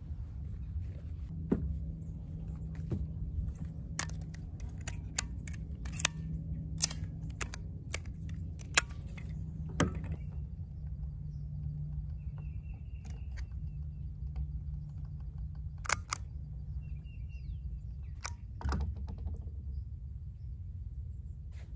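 A run of sharp, irregular clicks and snaps from small craft tools and fabric being worked on a wooden picnic table, thickest in the first half and coming back twice near the end, over a low steady rumble.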